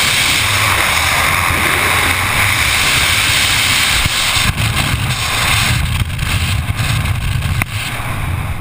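Freefall wind rushing and buffeting on the microphone of a skydiver's camera: a loud, steady roar of air with a gusty low rumble. About halfway through, the hiss thins out at the top and the rumble grows more gusty.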